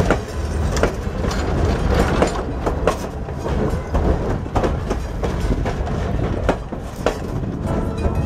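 Southern Pacific steel passenger coaches rolling past, a steady rumble of wheels on rail with sharp clicks as the wheels cross rail joints, about one every half-second to a second.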